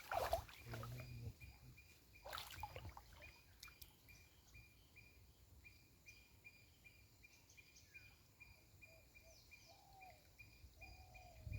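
Quiet riverside ambience: a short high note repeating steadily about two to three times a second, with a few birds chirping in the second half. A brief faint splash-like sound comes right at the start and again about two seconds in.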